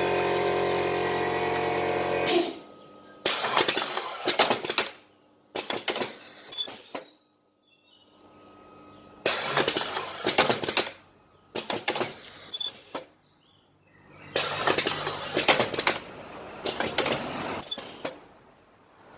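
Semi-automatic mask ear-loop welding machine working through its cycles. A steady hum stops about two seconds in, then comes a run of short bursts of mechanical clattering, each lasting a second or two with pauses between, several carrying a brief very high tone.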